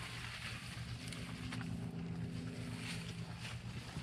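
Steady low drone of an engine or motor running in the background, with a light rush of wind noise on top.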